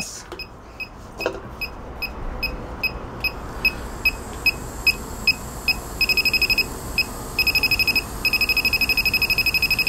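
WJL-6000 handheld refrigerant leak detector beeping at about three beeps a second, then, about six seconds in, switching to rapid, almost continuous beeping as it picks up the gas let out from the torch cylinder. The fast beeping is its leak alarm.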